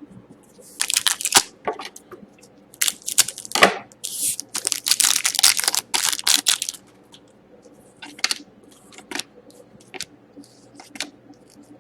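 Foil wrapper of a Panini Select hockey card pack being torn open and crinkled, in several loud ripping strokes over the first seven seconds. After that come lighter clicks and rustles of the cards being handled.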